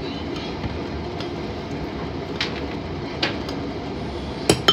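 Metal spoon stirring coffee in a clear glass mug, clinking against the glass a few times, the loudest two close together near the end, over a steady low background rumble.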